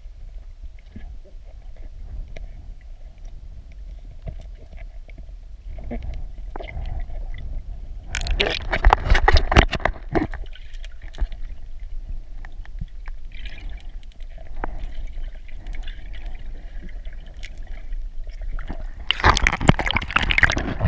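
Underwater sound of a swimmer's camera: a steady low rumble of water moving over the housing, with two loud spells of churning and bubbling water, one about eight seconds in and one near the end.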